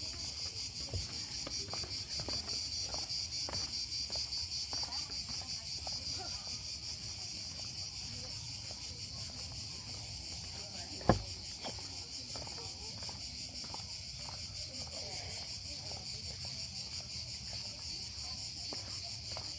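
Steady, high, buzzing chorus of insects. One sharp click sounds about eleven seconds in.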